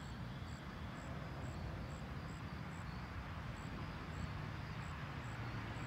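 Steady outdoor background rumble with faint, short high-pitched chirps repeating about twice a second.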